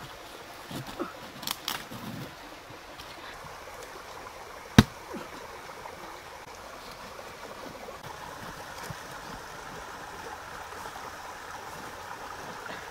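Shallow stream running steadily over stones. A few soft knocks come in the first two seconds, and one sharp click comes about five seconds in.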